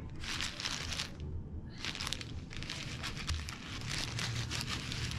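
Thin plastic crinkling and rustling in irregular bursts as disposable plastic gloves handle a raw sea bream fillet, with a low steady hum underneath.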